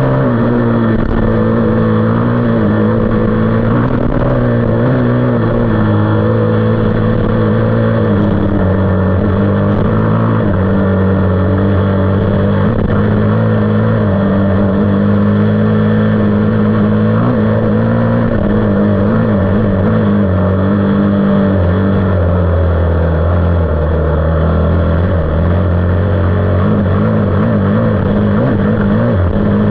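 A 450's engine running hard under way, its pitch wavering up and down with the throttle and dropping lower for a few seconds about two-thirds of the way through.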